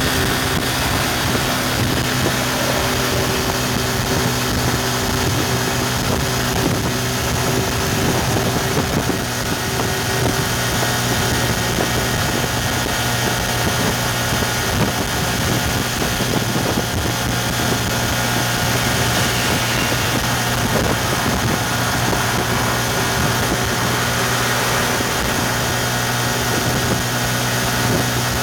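Yamaha FZ150i's single-cylinder four-stroke engine running steadily at about 8,000 rpm while cruising at highway speed, with wind noise over it.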